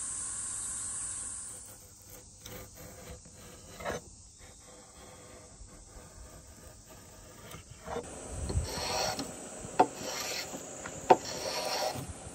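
A steel blade scraping and shaving bark off the live edge of a wooden slab in repeated strokes, faint at first and louder over the last few seconds, with a couple of sharp clicks. A steady high hiss fills the first couple of seconds.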